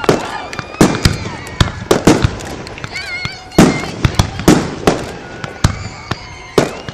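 Aerial fireworks bursting: about a dozen sharp bangs in quick, uneven succession, some overlapping, with echoing tails between them.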